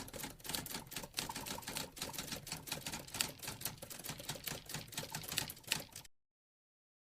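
Rapid, irregular clicking and clattering, several clicks a second, that cuts off suddenly about six seconds in.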